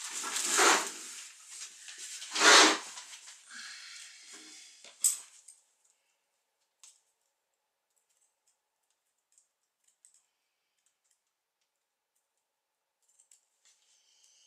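Craft materials being handled and rustled on a table: two loud rustles, then softer rustling and a sharp click about five seconds in, and then quiet.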